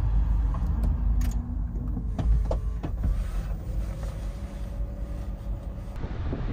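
Cabin sounds of a Honda Step WGN e:HEV as its power button is pressed and the hybrid system switches on to READY: several short clicks and a few faint tones over a steady low rumble.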